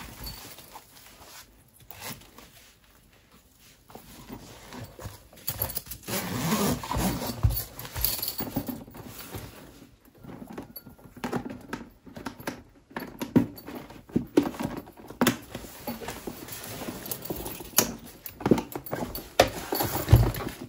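Packing and handling noise: a quilted fabric pouch is zipped and handled, then slid into a canvas tote bag. It is fabric rustling with irregular soft knocks and clicks.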